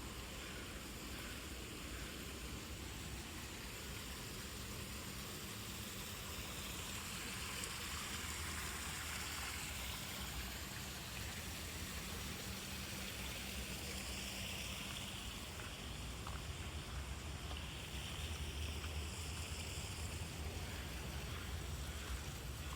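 Steady outdoor rushing noise with a low rumble underneath, growing slightly louder partway through.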